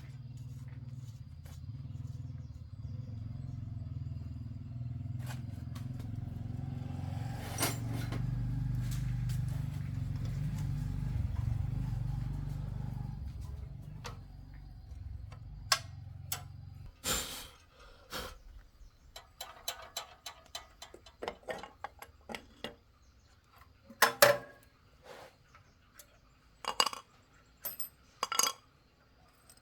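A low engine drone swells and then fades away, stopping a little over halfway through. After it, sharp metallic clinks and knocks come at irregular intervals, like tools and metal parts being handled.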